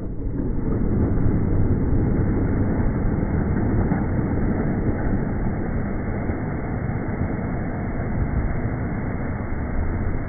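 Strokkur geyser erupting: a dense, steady rush of water and steam that swells as the blue dome bursts and then holds. It is played at one-eighth speed, so it comes across deep and low.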